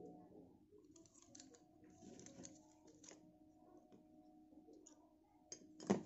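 Small brass binocular parts being handled and set down on a wooden tabletop: light clicks, taps and scrapes of metal, with one sharper knock near the end.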